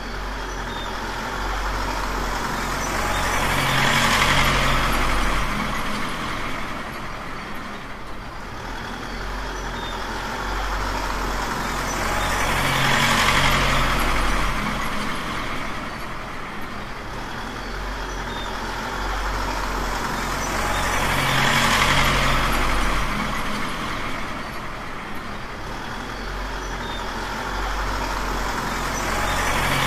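Truck engine sound: a steady low rumble that swells louder and rougher about every eight or nine seconds, then eases back.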